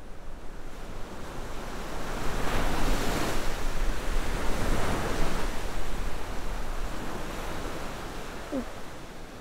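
Sea waves breaking on a beach: a rush of surf that swells over the first few seconds and slowly dies away.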